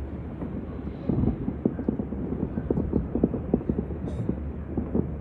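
Distant fireworks bursting: a rapid, irregular string of dull bangs over a low rumble, growing busier and louder about a second in.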